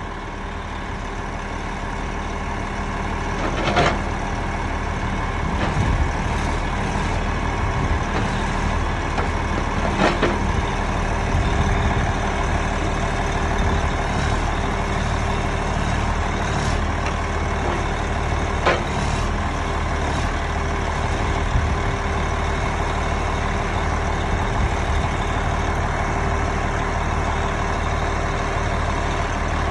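1995 Peterbilt grapple truck's diesel engine running steadily while the hydraulic knuckle-boom loader swings the grapple, with three sharp knocks from the moving boom.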